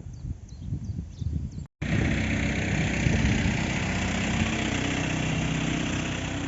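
An engine running steadily close by, a low drone with a steady pitch. It starts abruptly about two seconds in, after a brief dropout.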